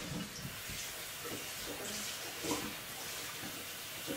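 Faint water running from a kitchen sink tap, with a few light knocks, the loudest about two and a half seconds in.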